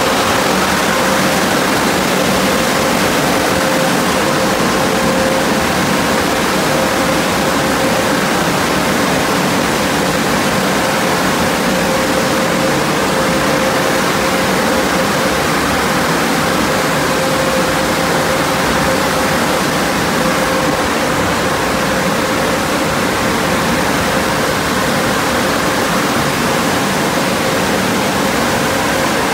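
Overhead car wash dryer blowers running: a loud, steady rush of air with a steady whine from the fan motors.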